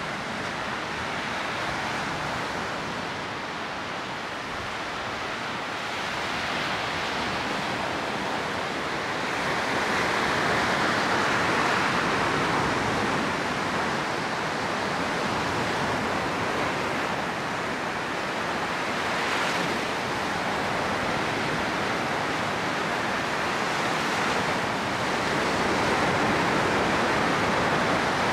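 Baltic Sea surf: small waves breaking and washing up on a sandy beach in a steady hiss. It swells louder about a third of the way in and again near the end.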